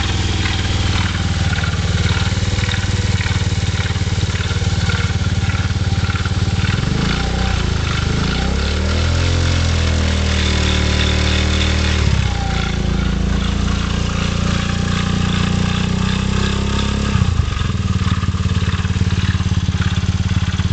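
GY6 50cc scooter's single-cylinder four-stroke engine running, revved up about seven seconds in, held higher for a few seconds, then dropping back and changing again near the end. Its noises are ones the owner regards as weird and bad.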